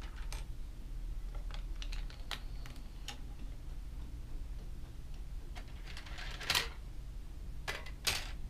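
Plastic Lego bricks clicking and clattering as they are handled and pressed together on a wooden tabletop: scattered light clicks, with a few louder clacks in the second half.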